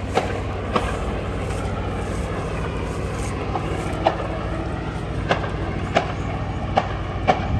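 A steady low mechanical hum, like an engine or motor running, with a handful of short sharp clicks or knocks at irregular intervals.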